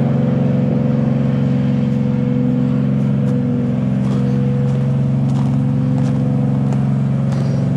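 A steady, even mechanical hum like an engine running at constant speed, with a few strong low tones and a fainter higher one.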